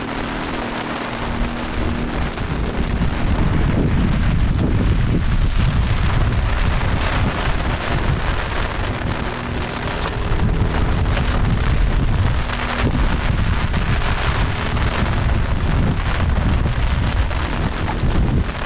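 Strong wind buffeting the microphone: a loud, uneven low rumble over a steady hiss, growing heavier about two seconds in.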